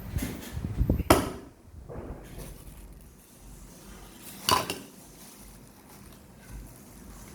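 Clatter of pots and utensils being handled: a run of knocks in the first second ending in a sharp clank, and another single clank about four and a half seconds in.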